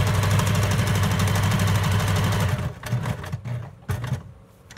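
Small electric sewing machine running fast, zigzag-stitching through paper journal pages. It stops about two and a half seconds in, and a few light clicks and knocks follow.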